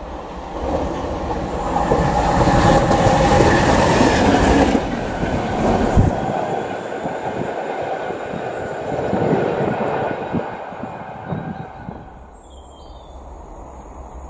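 A train passing through at speed: a rumble and clatter of wheels on the rails that builds up, is loudest a few seconds in, then fades away as it recedes.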